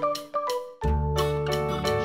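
Background music: a light tune of short pitched notes. The low bass part drops out at the start and comes back just under a second in.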